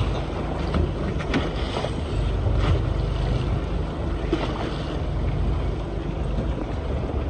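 Wind buffeting the microphone on a fishing boat at sea, with the wash of waves and a steady low rumble throughout. A few sharp clicks come about a second and a half in and again near three seconds.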